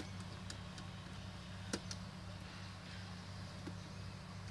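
Light clicks and taps as a laptop motherboard is pressed back into its plastic chassis by hand, with one sharper click just under two seconds in, over a steady low hum.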